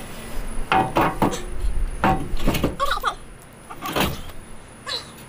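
Steel motorcycle hitch carrier being lifted and shifted by hand: a series of irregular metal clanks and rattles as its rails knock together.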